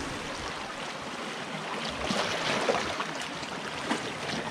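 Small sea waves washing and sloshing against shore rocks, a steady watery hiss that swells about two seconds in as a wave surges over the rocks.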